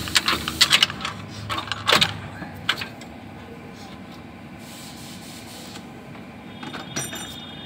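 Metal clinks and clatter of hand-handled engine parts and bolts against the engine block, a quick irregular run of sharp clicks in the first three seconds, then quieter.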